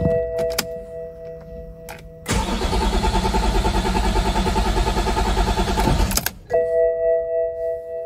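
BMW E60 530d's 3.0-litre inline-six diesel turned over by the starter for about four seconds without firing, then stopping abruptly: a crank-no-start, which the mechanic traces to the engine ECU (DDE) not syncing with the CAS immobilizer. A steady electronic warning tone sounds before and after the cranking.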